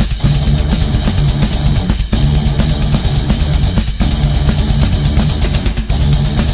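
Loud heavy metal music from a band with electric guitars and a drum kit. The riff drops out for an instant about every two seconds.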